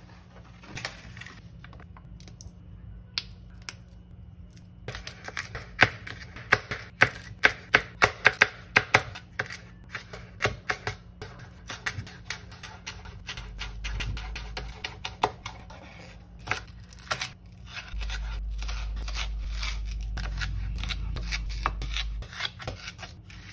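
Kitchen knife chopping green onion and leek on a wooden cutting board: a quick run of sharp knocks, several a second, starting about five seconds in, then slower, more spaced cuts.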